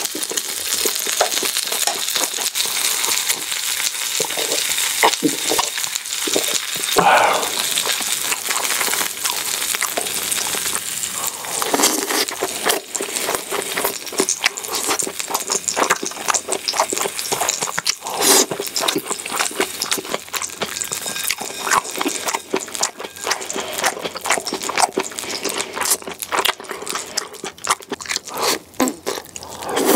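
Slices of beef tongue sizzling and crackling on a hot grill pan, with close-up chewing and the clicks of metal tongs on the pan.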